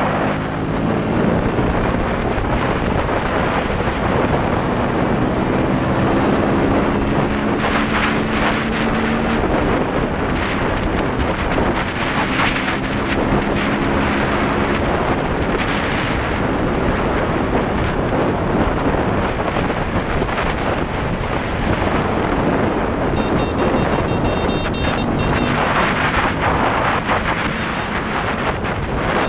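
Wind rushing over the microphone of a motorcycle at speed, swelling in gusts. The engine's steady hum runs beneath it through the first half and comes back faintly near the end.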